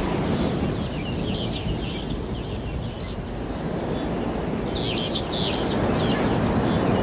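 Birds chirping in short quick runs, about a second in and again about five seconds in, over a steady low rushing background.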